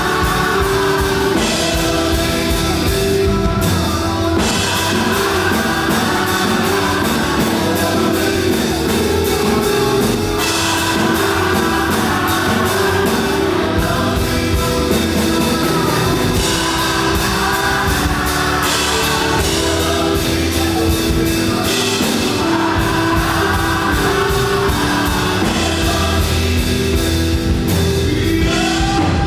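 Live up-tempo gospel worship music: singers over a band with a drum kit keeping a steady beat and guitar.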